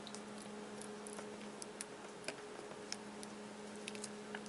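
Faint, scattered clicks and ticks of small plastic and silicone parts being handled as a silicone fastener is fitted onto a fitness-tracker band, over a steady low hum.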